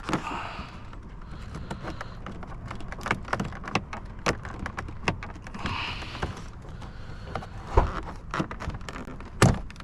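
Scattered clicks, taps and scraping from hands working plastic interior car trim loose. Two sharper knocks come near the end.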